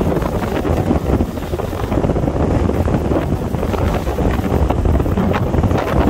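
Strong wind buffeting the microphone: a loud, gusty rumble that rises and falls.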